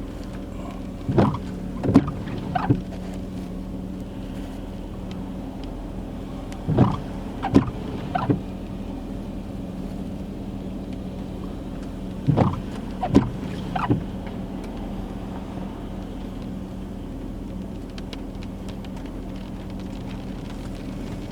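Car windshield wipers on an intermittent setting, sweeping about every five and a half seconds, each cycle a quick group of three strokes. Under them runs the steady hum of the car's engine.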